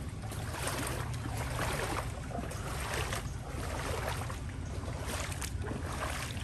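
Water splashing and sloshing in repeated surges over a steady low rumble, as of movement through floodwater.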